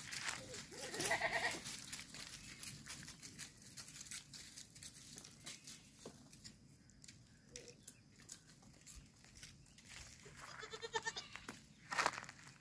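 Goats bleating: a short bleat about a second in and another near the end, with the crackle of dry leaves under hooves in between.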